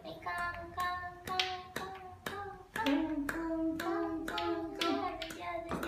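Two small wooden toy balls knocked together by hand, a dozen or so sharp clacks at an uneven two to three a second, each with a brief ring. A steady hum-like tone runs underneath.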